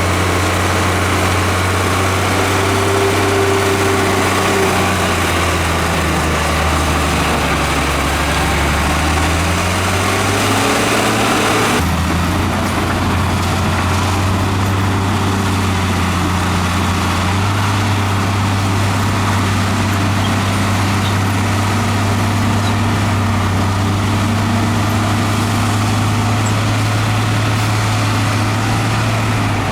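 Heavy diesel engine of earthmoving equipment running steadily. Its pitch drops for a few seconds and then climbs back, as if the engine lugs down under load, and the sound changes abruptly about twelve seconds in.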